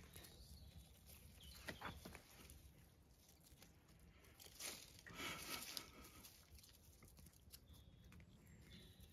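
Faint rustling and crunching of puppies chewing and tugging at a stick and pushing through garden plants, with scattered light clicks and a louder rustle about five seconds in.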